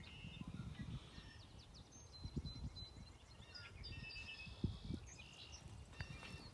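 Birds chirping and whistling in short repeated calls over low rumbling, with a few soft thumps.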